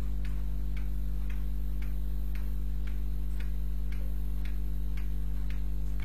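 Faint, regular ticking, about two ticks a second, over a steady low electrical hum.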